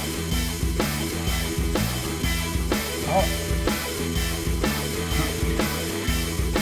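Background rock music with a steady drum beat and bass.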